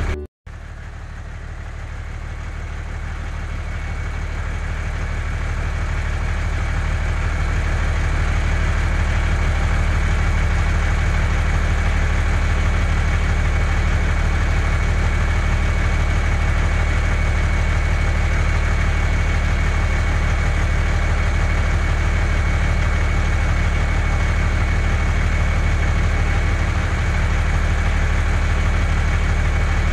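Truck engine sound running steadily, a constant low hum with a thin high whine above it, fading in over the first several seconds after a brief drop-out; an engine sound effect laid over footage of a motorless plastic toy dump truck.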